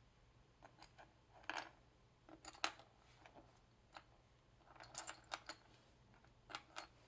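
Small hard-plastic model-kit parts being handled and fitted together: faint, scattered clicks and taps, some in quick little clusters.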